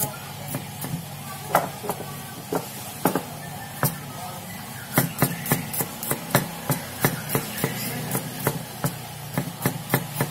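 Kitchen knife chopping garlic cloves on a wooden chopping board: sharp knocks of the blade on the wood. They come slower and unevenly for the first few seconds, then in a steady run of about three chops a second from about five seconds in.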